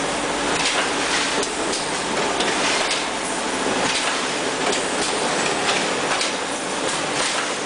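Pneumatic multi-point steel wire mesh welding machine running: a steady metallic clatter with frequent sharp clicks.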